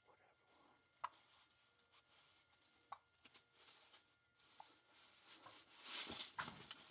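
Faint sharp clicks about two seconds apart, then a short burst of rustling near the end: small handling noises inside a fabric hunting ground blind.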